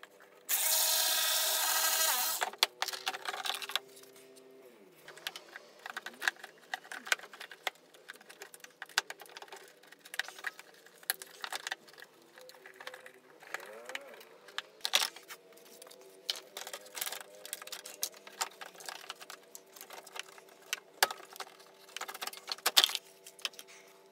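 Hand work in a car's engine bay: scattered clicks, knocks and rattles of tools and plastic parts being handled. A steady whir of a small power tool runs for about two seconds near the start and is the loudest sound.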